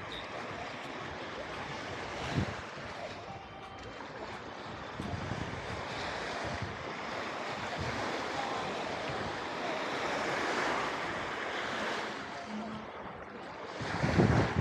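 Mediterranean waves washing onto a sandy beach, a steady surf that swells and eases. Near the end, wind buffets the microphone in loud low gusts.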